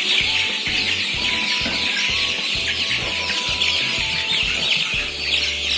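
A flock of young kampung chickens, about four weeks old, peeping continuously in a dense chorus of short, high calls.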